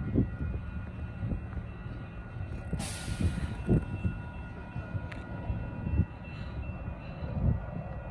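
Wind gusting against the microphone in irregular low rumbles and thumps, over a faint steady whine. A short hiss comes about three seconds in.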